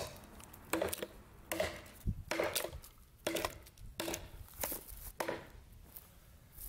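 Heavy chopper knife, its blade made from a truck leaf spring, chopping into a log: a run of about nine sharp strikes of steel biting into wood, roughly one every half second to second.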